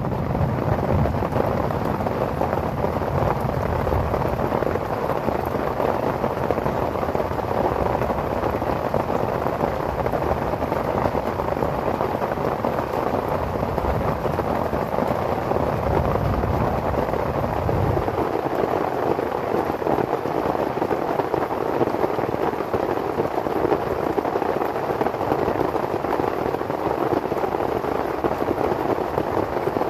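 Steady heavy rain falling on a tent, an even hiss throughout, with a low rumble underneath in the first few seconds and again briefly just past the middle.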